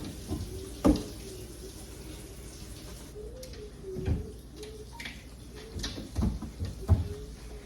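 Several sharp knocks and clatters of objects being handled and set down while a refrigerator is cleaned, over a faint steady background with a wavering hum.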